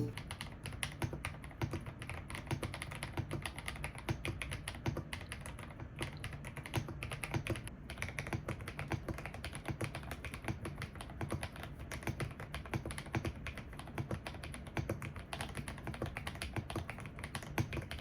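Continuous typing on a customized Feker IK65 mechanical keyboard: many fast keystrokes a second, a steady stream of clicks.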